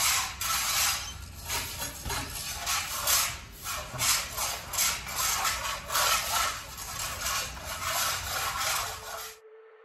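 Stiff brooms sweeping a bare concrete slab: bristles scraping over the rough surface in repeated short strokes, about two a second, with two people sweeping at once. The sweeping stops abruptly near the end.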